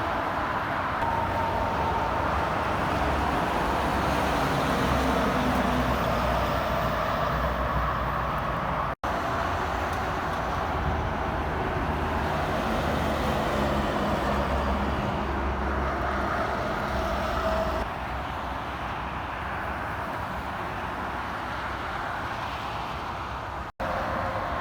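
Steady interstate highway traffic: cars and trucks passing, their tyre and engine noise rising and fading. The sound drops out for an instant twice, about nine seconds in and near the end.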